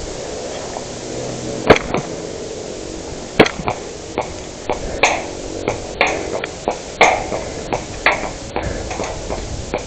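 Airsoft gunfire: two sharp single shots about a second and a half apart, then a string of roughly a dozen more over the next six seconds, several with a short ringing tail.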